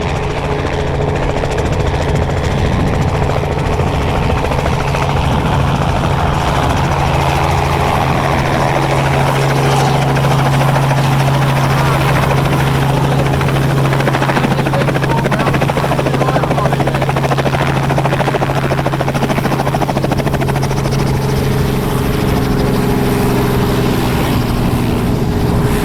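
Helicopter running at close range: a loud, steady drone of engine and rotors.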